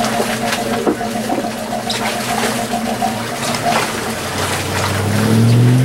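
Steady mechanical hum over a wash of rushing noise, then an engine revving up about four seconds in, its pitch rising and growing louder.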